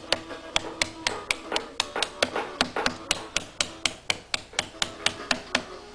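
Hammer blows in quick, even succession, about four a second, striking the bolted plates of a homemade HHO hydrogen generator cell to knock it apart.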